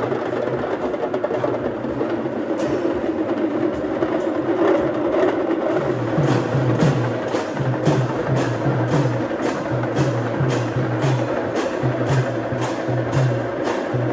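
Procession percussion playing a steady beat: low drum strokes with sharp, bright strikes about twice a second, over a continuous din. The bright strikes become distinct a few seconds in.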